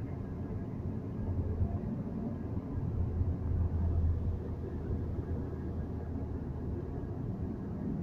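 Road noise heard from inside a moving vehicle's cabin: a steady low rumble of tyres and engine at cruising speed, swelling a little about halfway through.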